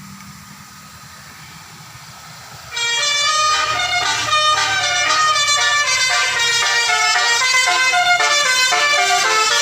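Telolet horn, the multi-trumpet melodic air horn fitted to Indonesian buses and trucks, starts loudly and suddenly a little under three seconds in and plays a quick tune of changing notes.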